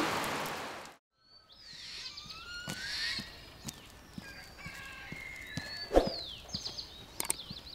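Rain hissing, fading out within the first second, then after a brief gap birds chirping and whistling in short rising and falling calls. Scattered light footsteps and clicks, with one loud thump about six seconds in.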